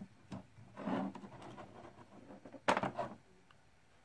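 Hands handling objects on a workbench: rubbing and scraping, with a short sharp clatter about three-quarters of the way through.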